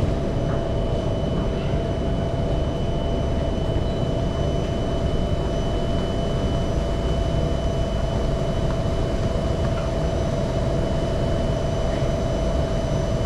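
Singapore MRT train running at a steady speed, heard from inside the car: an even rumble of wheels on rail with a constant high whine.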